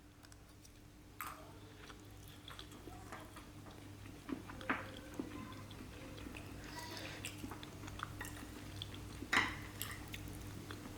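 Someone eating: soft chewing with a few sharp clicks of a spoon or cutlery against a dish, over a steady low hum.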